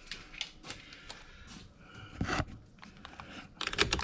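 A hand wrench working on a car battery terminal clamp as its tightness is checked: scattered small metallic clicks and scrapes, a louder scrape a little past two seconds in, and a quick run of clicks near the end.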